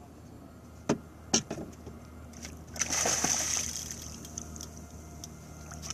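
Water splashing at the boat's side as a hooked kingfish thrashes at the surface, in one burst about three seconds in. Two sharp knocks, the loudest sounds, come just before, about a second in.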